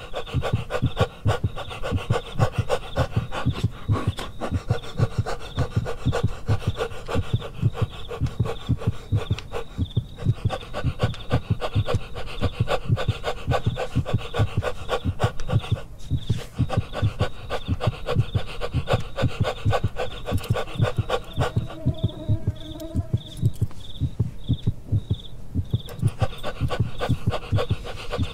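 Dog panting rapidly in a steady rasping rhythm of quick, even breaths.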